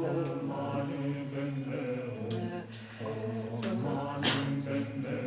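A woman's voice making long, drawn-out hesitation sounds while searching for a word, held on a steady pitch rather than spoken as words.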